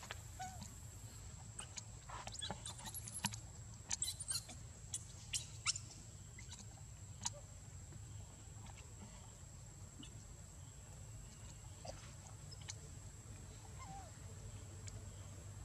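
Faint outdoor ambience: a steady high thin tone and low hum, with a cluster of short, sharp high chirps and clicks a couple of seconds in and a few scattered faint squeaks after.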